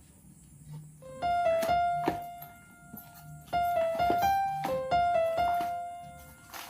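Background music: a simple melody of single notes played in two short phrases with pauses between them.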